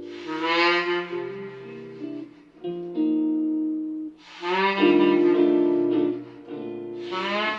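Recorded saxophone music played back over 1967 AR-3a loudspeakers driven by a Mark Levinson ML-2L amplifier: three swelling saxophone phrases, each scooping up in pitch as it enters, over sustained chords.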